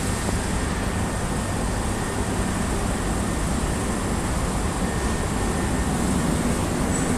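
Mitsubishi J Series escalator running, a steady mechanical hum and hiss.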